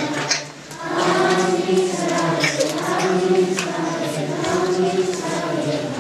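A choir of voices chanting together. The singing dips briefly about half a second in, then comes back fuller and carries on steadily.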